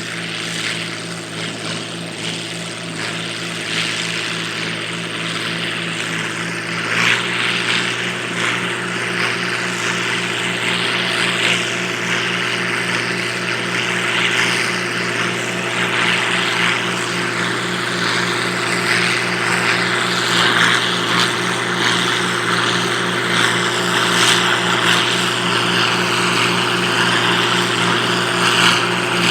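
Minneapolis-Moline G850 tractor engine running steadily under load, pulling a square hay baler; its pitch steps up slightly and it gets a little louder about seven seconds in.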